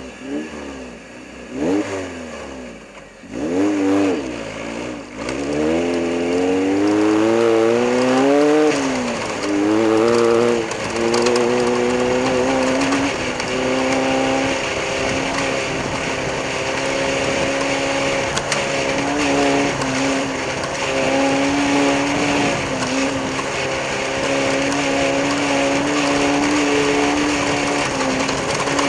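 Off-road race vehicle's engine revving in short blips, then accelerating, its pitch climbing and dropping back twice as it shifts up, and from about eleven seconds in running at a steady high pitch.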